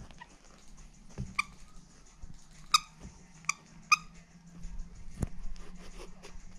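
Squeaky dog toy squeaked four times in quick short squeaks as a black teacup poodle mouths and chews it, then a single soft thump.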